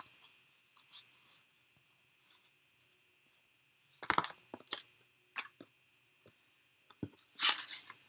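Paper and cardstock handled on a craft table: a few brief rustles and light taps with quiet between them, a cluster about four seconds in, and a louder brief rustle shortly before the end.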